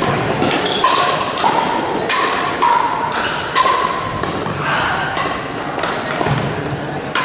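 Pickleball paddles striking a hard plastic pickleball: a string of sharp, hollow pops, each ringing briefly and echoing around a large gymnasium.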